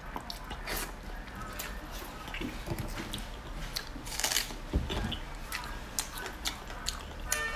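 Close-miked eating sounds of spicy sauce-coated meat: wet chewing, lip smacking and small mouth clicks, with a longer sucking slurp about four seconds in. A dull low thump follows shortly after.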